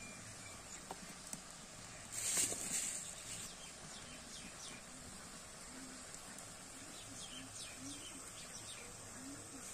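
Birds calling with short falling chirps over a steady high insect drone. About two seconds in, a loud burst of noise lasts under a second.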